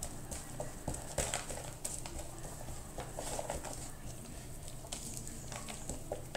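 Hands patting and rubbing dry rub into a raw rack of baby back ribs on paper: soft, irregular pats and taps on the meat, over a low steady room hum.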